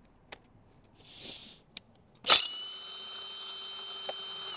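Power tool, likely an impact wrench, undoing the bolt at the bottom of a motorcycle fork leg. A loud burst about two seconds in, then the motor spins with a steady whine for about two seconds and stops sharply.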